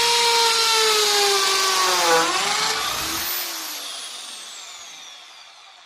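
Electric drill running as it bores a hole through a piece of wood; its pitch sags and dips briefly about two seconds in, then the motor winds down and fades.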